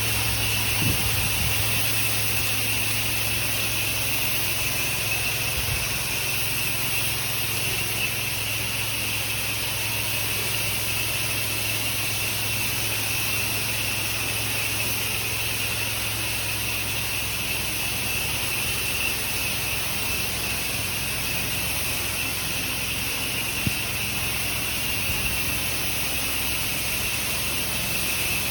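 Pressure washer running steadily, its engine humming under the constant hiss of the water spray.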